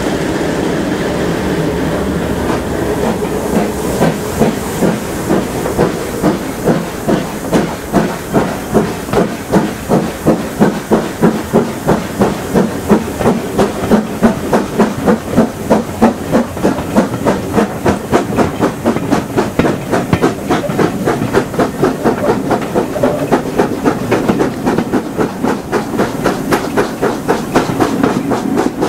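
LMS Black Five steam locomotive 45212 hauling its train away: hissing steam at first, then its exhaust beats starting about four seconds in and settling into an even chuff of about two to three beats a second that quickens slightly. Wheels click over the rail joints, and the sound is heard from a carriage window behind the engine.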